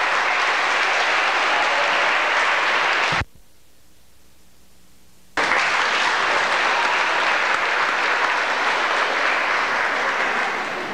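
Audience applauding steadily, with the sound dropping out abruptly for about two seconds a little over three seconds in, where the videotape recording breaks, then resuming.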